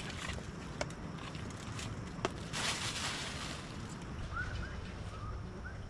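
A couple of sharp clicks and a short rustle from things being handled. From about three-quarters of the way in, a bird gives a series of short chirping calls.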